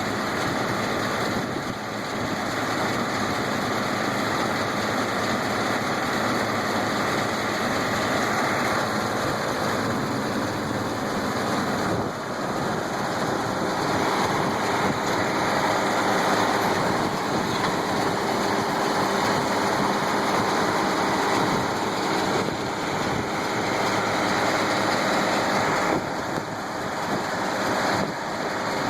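International Harvester 1086 tractor's six-cylinder turbo diesel running steadily under load while pulling a New Holland 648 round baler through hay, the baler running with it as one steady machine noise, with a couple of brief dips.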